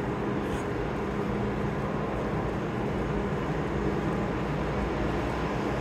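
Steady low rumble with a faint even hum: the background sound of an underground subway platform, with no train at the station.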